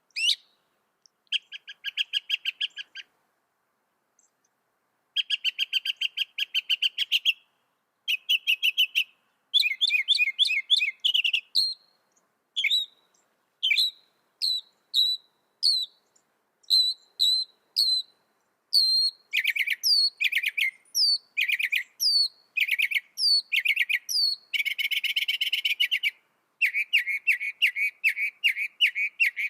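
Mockingbird singing a string of varied phrases, each repeated several times before switching: rapid trilled runs, then a series of short rising whistles, then fast chattering notes near the end.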